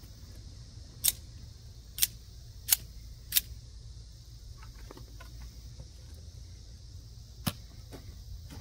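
Sharp clicks from an OTF automatic knife being handled and tested: four snaps within about two and a half seconds, a few faint ticks, then one more snap near the end.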